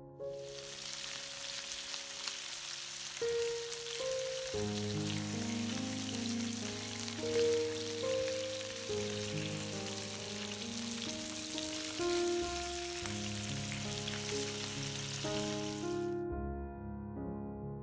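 Food frying in hot oil in a pan, a steady sizzle that cuts off suddenly near the end, over soft piano background music.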